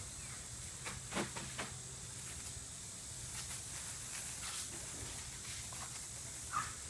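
Garden hose spraying with a steady hiss, water pattering on the grass, with a few faint brief knocks and splashes as a dog snaps at the stream.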